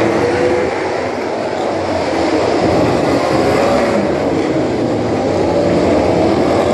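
Several MotoGP racing motorcycles' four-cylinder engines running at once, loud and overlapping, their pitches wavering and gliding up and down as they are revved.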